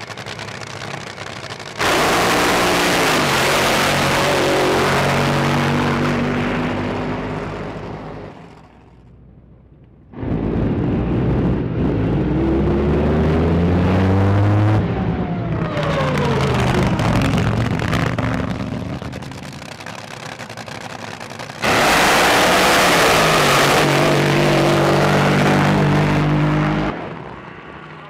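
8000 hp drag boat engines running flat out on three passes, each cut in abruptly. The engine pitch climbs hard, then falls away as the boat passes, most clearly in the middle pass.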